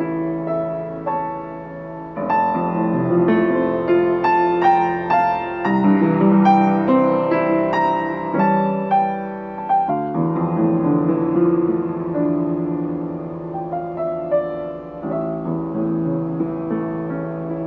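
Upright piano played with both hands: a slow piece of held chords and melody, growing louder with a busier run of higher notes in the middle, then settling back softer.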